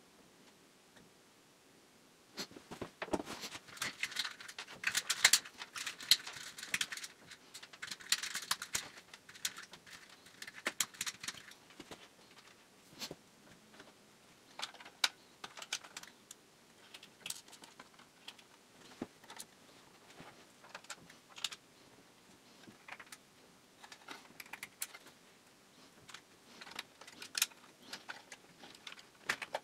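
Small clicks, taps and rustles of hands handling wires and parts inside a loudspeaker's electronics housing. They come busily for several seconds and then as scattered sharp ticks.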